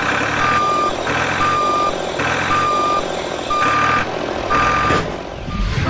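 Vehicle reversing alarm beeping about once a second, a plain steady tone alternating with a harsher buzzing tone, over a low rumble.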